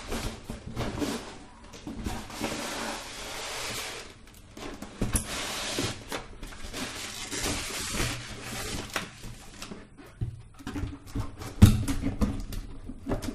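Cardboard drone packaging being handled and opened: long scraping slides of the box sleeve, rustling and light knocks, and a sharp knock near the end.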